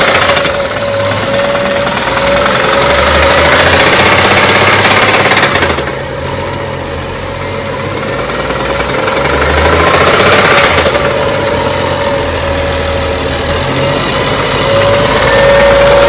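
BMW diesel engine idling with a knock from inside the engine. It is steady throughout, quieter for a few seconds in the middle.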